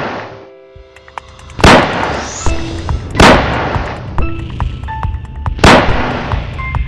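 Three loud gunshot-like blasts at uneven intervals, each fading over about a second, laid over background music.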